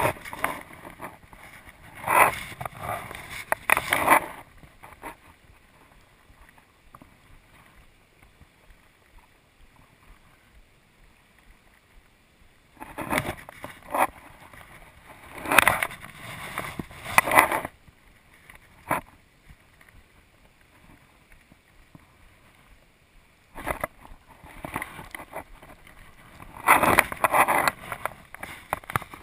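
Fly line being stripped in by hand and handled on a fly rod close to the microphone: three bunches of quick rustling, scraping strokes, about ten seconds apart, with the steady rush of river current between them.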